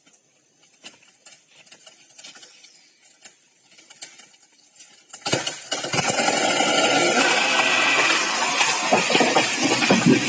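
Light scattered clinks and taps of hand tools, then about five seconds in a loud power tool starts up and works steadily on the timber of a wooden boat frame.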